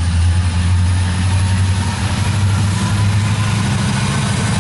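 Several diesel-electric locomotives at the head of an approaching train, their engines running with a steady deep drone.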